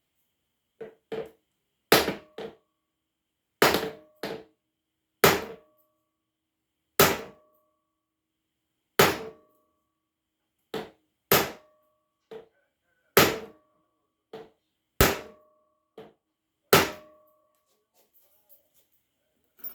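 Hammer blows driving the rust-seized piston down the cylinder of a 1952 Scott Atwater 7.5 hp outboard with the head off. Nine heavy blows land about every two seconds, with lighter taps between them, and each heavy blow leaves a short metallic ring.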